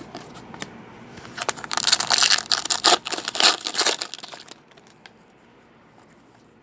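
Wrapper of a football trading card pack being torn open and crinkled: a run of crackling lasting about three seconds, starting just over a second in, after a few light clicks.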